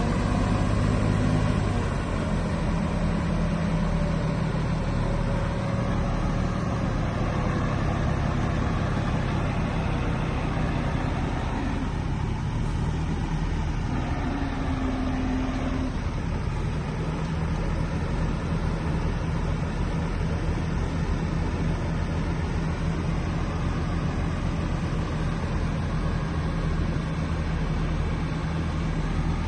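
Heavy diesel earthmoving machinery running steadily under load, with a low engine note throughout. A fainter higher whine slowly falls in pitch over the first ten seconds.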